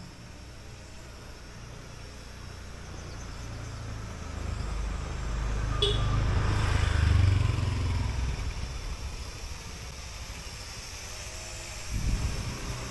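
A road vehicle passing by: its rumble swells, peaks about seven seconds in and fades away, over a faint steady hiss. There is a short low thump near the end.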